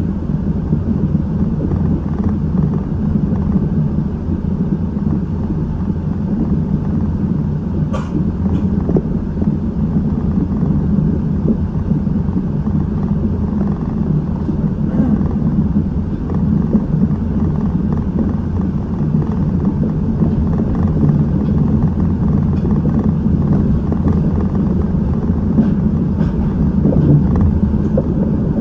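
Seibu 8500 series rubber-tyred guideway train heard from inside the cab while running: a steady low rumble of tyres on the concrete track and traction motors, with one sharp click about eight seconds in.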